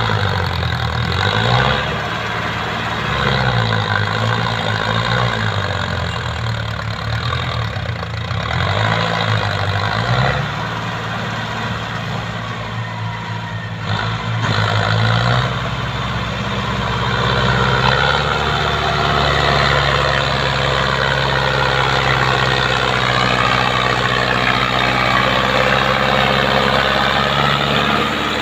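Mahindra Arjun Novo 605 DI tractor's diesel engine working under load, its speed rising and falling again and again. About halfway through it settles into a steady, higher-speed run.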